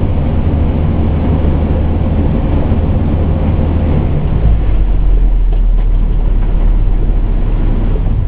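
Pierce Enforcer fire engine's diesel engine running steadily. About halfway through, its note drops to a deeper, lower hum.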